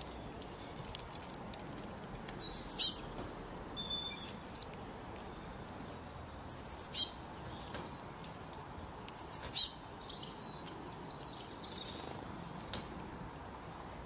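Small songbirds calling: three short bursts of quick, high, falling chirps, a few seconds apart, with a few softer chirps between them over a faint steady hiss.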